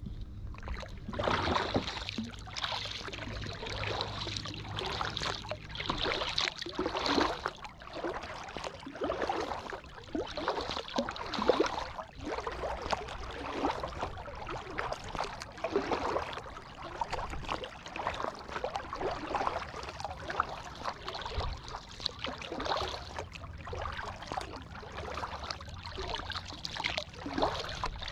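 Kayak paddle strokes in the water: a splash and drip roughly every second, in a steady rhythm.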